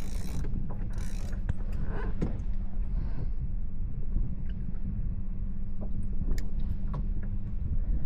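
Fishing reel being cranked to pull in the line, with a clicking, ratcheting gear sound over a steady low rumble.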